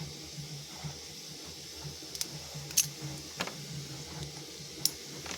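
A lock pick working the pin stack of an Ace 44mm laminated padlock: a few short, sharp metallic clicks spread through a couple of seconds, over a low steady hum.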